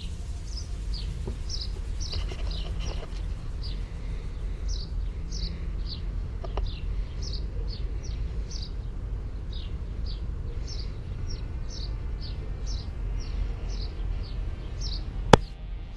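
A bird chirping over and over, short high falling chirps about twice a second, over a steady low rumble. A single sharp click comes near the end.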